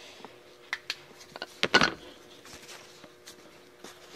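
Handling noise as the camera is moved about: scattered light clicks, taps and rubbing of plastic and fabric, with one louder rustling scrape a little under two seconds in, over a faint steady hum.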